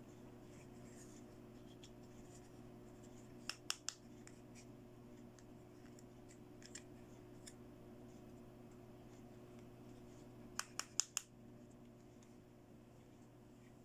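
Small plastic clicks from handling a miniature pink plastic doll backpack: a quick group of three about three and a half seconds in and four more near the end, with a few faint ticks between, over a faint steady hum.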